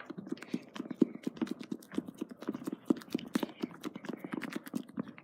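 A spoon stirring a thick, foamy slime mixture of glue, shaving cream and foaming hand soap, knocking and scraping against the sides of the container in a quick, uneven run of clicks, about four or five a second.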